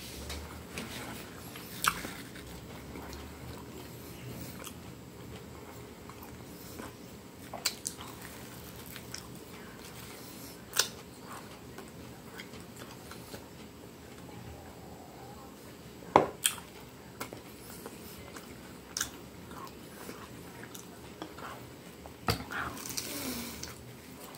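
Close-miked mouth sounds of a person chewing a bite of Brazilian sausage roll (enrolado de salsicha), with sharp wet smacks and clicks every few seconds, the loudest about two-thirds of the way through.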